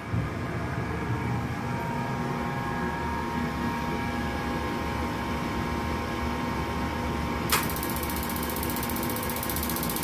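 Steady hum of a gas furnace's draft-inducer fan, with other exhaust fans running. About seven and a half seconds in, a high hiss starts abruptly, as the gas burners light.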